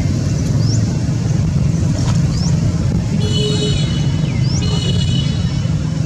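Steady low rumble of motor traffic. Short high chirps come about every two seconds, and two brief high tones sound near the middle.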